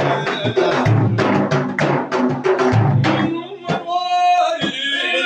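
Sufi devotional praise song: drums beat a fast rhythm under low group voices, then about three and a half seconds in the drumming thins out and a male voice comes in singing a long held line.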